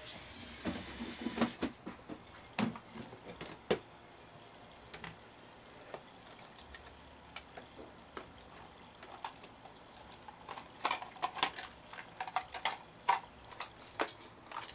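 Irregular light clicks and knocks of small household objects being handled: a cluster in the first few seconds, a few scattered ones, then a quicker run of taps from about eleven to fourteen seconds in.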